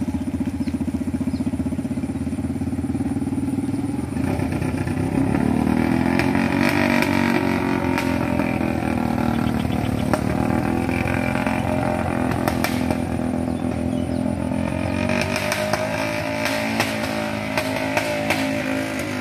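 Small motorcycle engines working under load on a steep climb: a three-wheeled cargo motorbike loaded with riders, with a scooter passing. The engine note rises about four seconds in and stays high, with scattered clicks and clatter.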